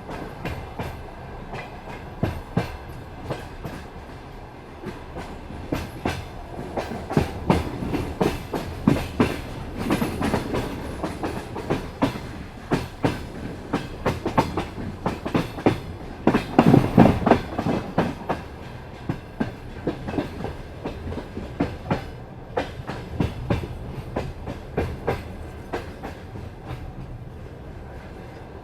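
Passenger coach wheels clattering over rail joints and crossing switches, an irregular run of sharp knocks over a steady rolling rumble. The knocks come thickest through the middle and are loudest a little past halfway.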